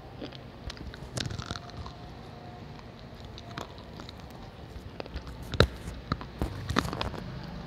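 Slate pencil being bitten and chewed: a run of sharp, irregular crunching cracks, the loudest a little past the middle.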